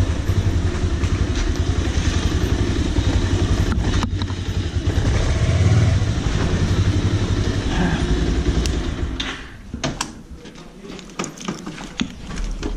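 Bajaj Pulsar 180's single-cylinder engine running at low speed, then switched off about nine seconds in. Scattered light clicks and knocks follow.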